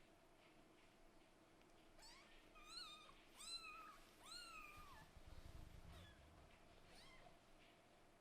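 Scottish Fold–British Shorthair kittens meowing: a quick run of thin, high-pitched mews rising and falling in pitch, three clear ones in a row about halfway through, then a couple of fainter ones. A short low rumble follows the loudest mews.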